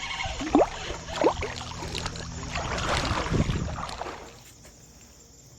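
Water splashing and sloshing in a shallow creek, dying away about four seconds in.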